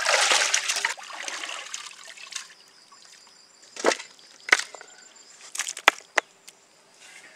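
Pouring or trickling noise that fades out within the first two seconds, then a few sharp clicks and knocks of kitchen utensils being handled.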